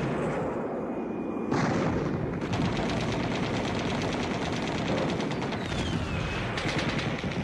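Recorded battle sound effect on a hardcore punk record: rapid machine-gun fire and gunshots over a dense din, with faint high whistles gliding down. It gets louder about a second and a half in.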